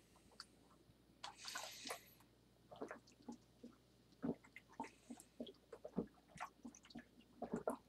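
Faint gulping and swallowing of soda: small wet clicks and gulps, irregular, about one or two a second, after a short breathy hiss about a second in.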